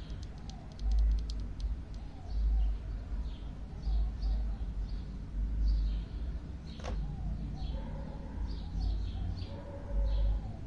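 Small birds chirping over and over in short high calls, with a quick run of light clicks in the first second and a half and one sharper click about seven seconds in. Low dull thuds come every second or two.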